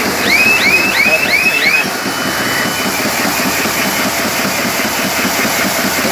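Polystar RH wicketer bag-making machine running, a steady mechanical noise with a fast repeating rhythm. Five quick rising whines in a row sound over it in the first two seconds.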